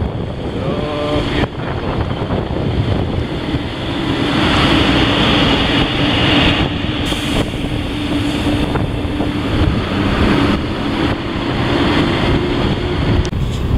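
Wind rushing over the microphone on a moving motorcycle, with a steady engine drone under it from about four seconds in.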